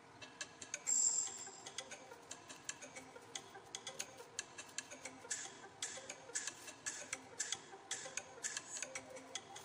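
A metal spoon scraping the seeds and pith out of a halved bitter melon: a run of quick, irregular clicks and scrapes, with a longer, louder scrape about a second in.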